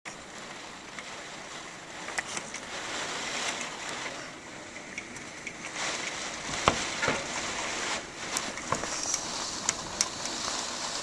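Hurricane wind and rain: a rushing noise that swells and eases in gusts, with scattered sharp taps.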